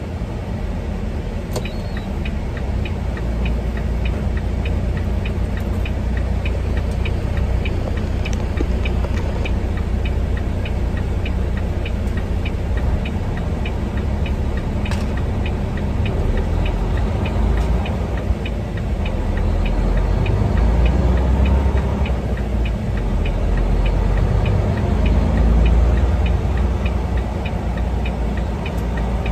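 Semi-truck cab interior while driving: steady low engine and road rumble, with the turn-signal indicator ticking about twice a second from about two seconds in.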